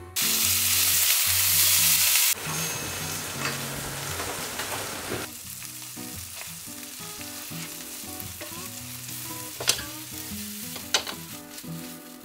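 A loud burst of sizzling for about two seconds as liquid is poured into a hot frying pan. It settles into a steadier sizzle as udon noodles and vegetables are stir-fried in a spicy yangnyeom sauce, with a couple of sharp taps of chopsticks against the pan in the second half.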